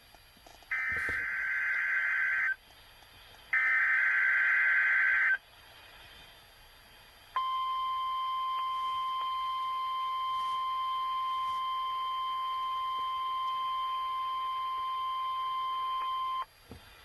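NOAA Weather Radio Emergency Alert System signal. Two short bursts of the buzzy, screeching SAME digital header come first. A pause follows, then the steady 1050 Hz warning alarm tone, held for about nine seconds before it cuts off. This is the signal that switches specially built weather radio receivers on to warn of a hazard, sent here as a test.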